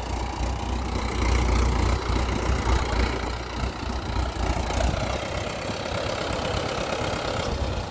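Mahindra 585 DI XP Plus tractor's diesel engine running at low revs as it pulls a fully loaded sand trolley slowly forward. The deep rumble is strongest for the first five seconds, then eases.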